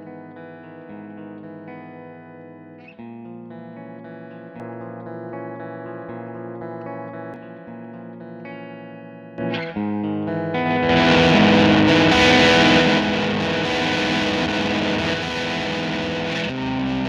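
Electric guitar played through the Ace virtual amp plugin with its built-in cabinet: ringing chords in a clean tone. About nine and a half seconds in, the tone turns much louder and brighter, with added saturated grit.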